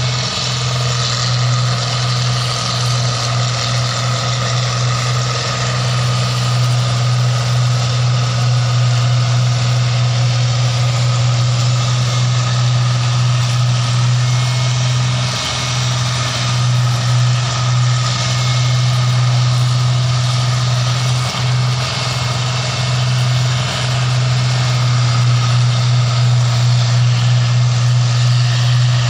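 The engine of a paddy (rice) machine running steadily and loudly, with a strong, even low hum throughout.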